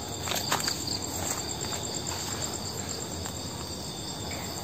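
Night insects chirping in a steady high-pitched chorus, with a few faint footsteps on leaf litter near the start.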